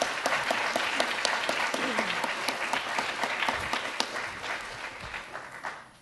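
Audience applauding, dying away near the end.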